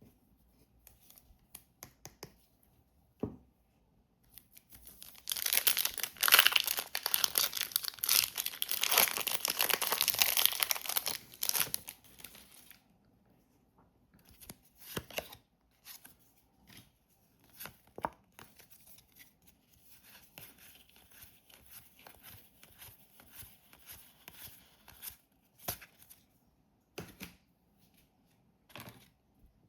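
Packaging torn open by hand in one long rip lasting several seconds, followed by scattered crinkles, rustles and small clicks as the contents are handled.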